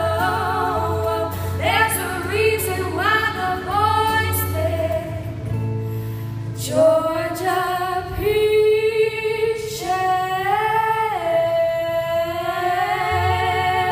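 Two female vocalists singing together over a strummed acoustic guitar, holding one long note near the end.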